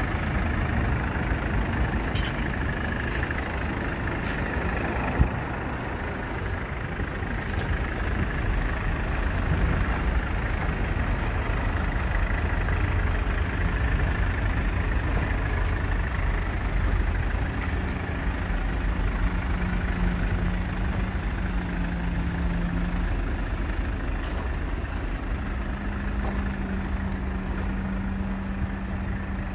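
Steady low vehicle engine rumble, with one sharp click about five seconds in and a steady low hum coming in during the second half.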